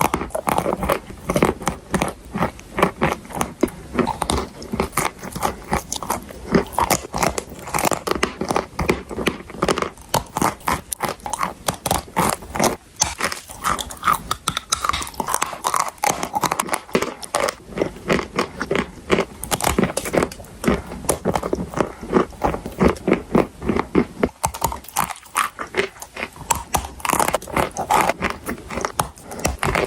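A person biting and chewing hard chalk and clay close to the microphone, with dense, crisp crunches many times a second throughout.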